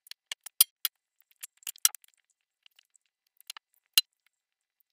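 Knife tip clinking against the dish beneath while slits are cut into a raw lamb leg: irregular sharp light taps, mostly in the first two seconds, with a sharper one about four seconds in.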